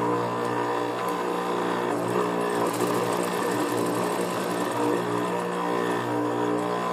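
Juki industrial sewing machine running as it stitches fabric, its motor humming steadily, with a quicker rattling run of stitches about three seconds in.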